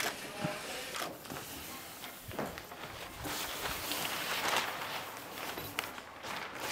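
Small rubber ink brayer rolled back and forth over an inked printing plate: a sticky, rasping hiss of ink under the roller, louder about halfway through, with a sharp knock at the start.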